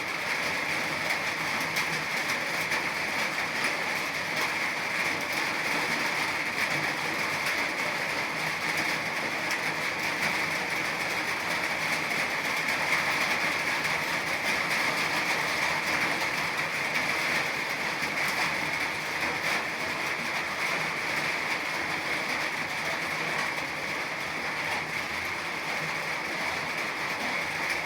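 Steady rain falling, a continuous even hiss with fine pattering.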